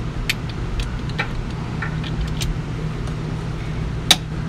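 Scattered metal clicks and taps from a long ratchet wrench on the 3/4-inch hold-down bolts of a Detroit Diesel 6V92's Jake brake housings, with one sharp crack about four seconds in, over a steady low background hum.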